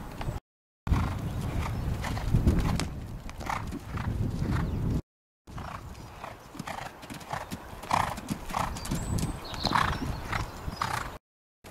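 Hoofbeats of a cantering horse on grass turf, a repeated drumming of strides, with a heavy low rumble through the first few seconds. The sound cuts out briefly twice.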